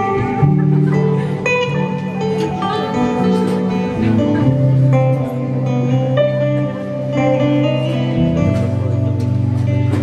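Acoustic guitar played live in an instrumental passage: picked notes change every second or so over low notes that are held and ring on.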